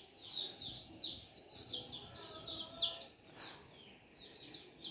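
Bird chirping in quick runs of short, falling notes, several a second, with a pause of about a second near the three-second mark before the chirps resume.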